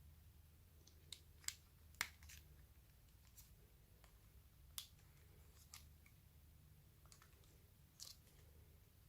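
Handling of a phone and its packaging: a handful of light, irregular clicks and taps over a low steady hum.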